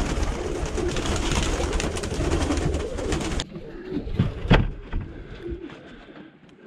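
A flock of domestic pigeons cooing in a small loft. The sound cuts off abruptly about halfway in, followed by a few sharp knocks.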